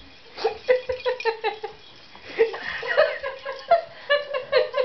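A person giggling in quick runs of short, high-pitched laughs: one run about half a second in, another from about three seconds in.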